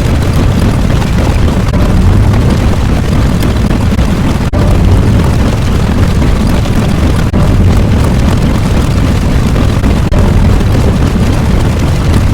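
Loud, continuous rumbling explosion sound effect, heaviest in the bass, made of segments joined end to end with a brief dropout about every three seconds.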